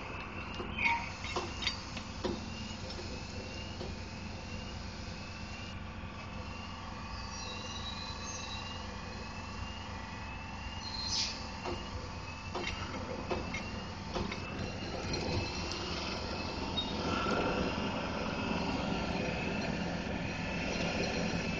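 Steady low rumble of a running engine, with a regular series of short rising chirps, a little under two a second, through the first half, and a few scattered clicks.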